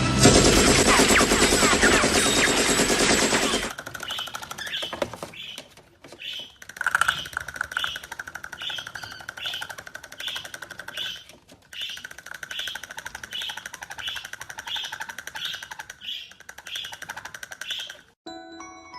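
A loud, harsh burst of sound for the first few seconds. Then a bird gives a fast rattling call with chirps repeating a little under twice a second, breaking off briefly a few times.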